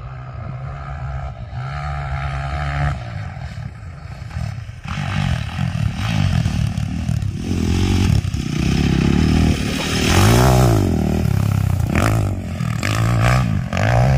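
Dirt bike engine running, steady at first, then revving up and down over and over from about five seconds in, loudest about ten seconds in.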